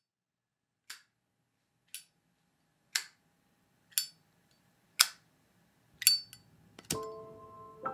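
Sharp metallic clicks from a chrome flip-top lighter, about one a second and each louder than the last, then two quick clicks. Near the end a sharper click comes as soft piano music begins.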